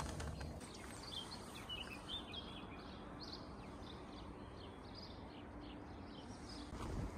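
Several small birds chirping and singing, many short high notes one after another, over a low steady outdoor rumble.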